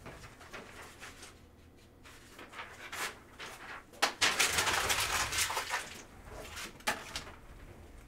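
Sealed trading-card boxes being handled and opened: scattered clicks and knocks, then a loud ripping noise about four seconds in that lasts about two seconds, with a sharp click near the end.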